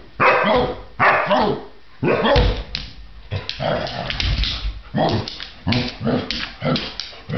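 Puppy barking in play, a string of short barks about once a second that come quicker near the end.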